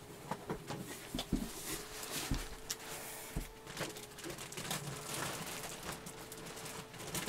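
Handling noise from a heavy PC tower being worked out of a rain-soaked cardboard shipping box: rustling and scraping cardboard with scattered knocks, the tower stuck fast in the box.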